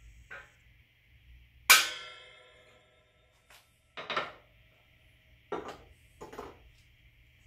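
A single hammer tap on a steel transfer punch seated in the regulator body inside a copper model-locomotive boiler: one sharp metallic strike that rings for about a second, marking the entry point for the steam pipe. A few softer knocks follow as the punch and hammer are handled.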